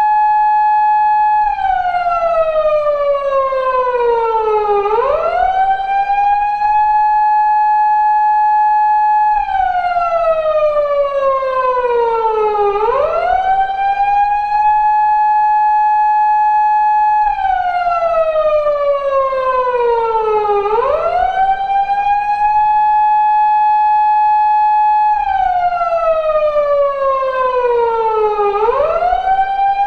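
Japanese police car siren, the 2000s-era tone used on 170- and 180-series Toyota Crown patrol cars, cycling on a loop. It holds a high steady note, slowly falls in pitch, then sweeps quickly back up. The cycle repeats about every eight seconds, four times here.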